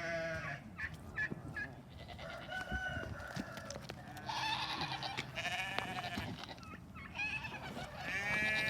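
Farm animals bleating, four or so separate calls, with a few short knocks and rustles in between.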